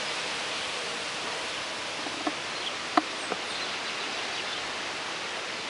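Honeybees buzzing around a hive entrance as a steady, hiss-like hum, with a few small taps about two to three seconds in, the middle one the loudest.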